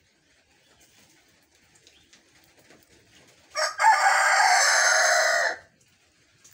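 Rooster crowing once, about three and a half seconds in: a short catch, then one flat, drawn-out crow of about two seconds. It is an odd, lazy-sounding, hacking crow, unlike a usual cock-a-doodle-doo.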